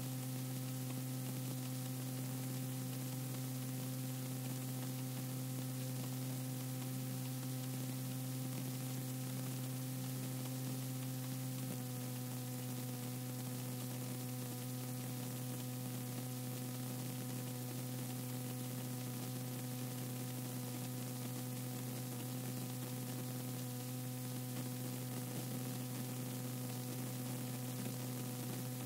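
Steady electrical mains hum with tape hiss on the blank stretch of an audio cassette recording.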